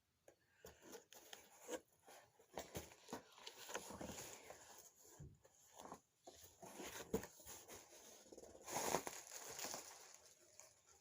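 Packaging being handled and unwrapped: faint, irregular crinkling and tearing with small clicks, a little louder about nine seconds in.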